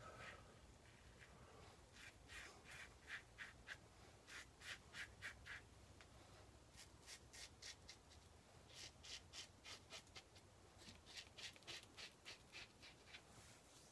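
Gillette SuperSpeed double-edge safety razor scraping through lathered stubble on the third pass. It goes in faint, quick strokes, about four a second, in runs of several strokes with short pauses between.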